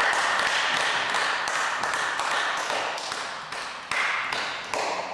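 A run of light, quick taps of a celluloid table tennis ball bouncing and skittering on a wooden hall floor after a rally, with the hall's echo behind them; they fade out near the end.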